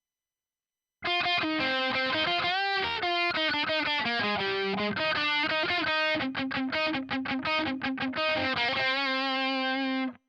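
Electric guitar played through the Audiority L12X solid-state amp plugin, a Marshall JCM-style amp simulation set on one of its presets, with a distorted tone. A riff of notes and chords starts about a second in, turns to fast repeated notes in the latter half, and ends on a held chord that cuts off suddenly.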